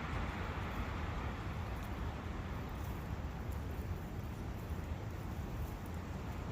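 Steady rushing of a forest brook: an even, unbroken water noise with a deep rumble underneath.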